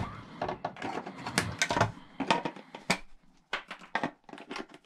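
Irregular clicks and knocks of a garage door opener's plastic cover and a pair of pliers being handled during disassembly, close together at first and thinning out after about three seconds.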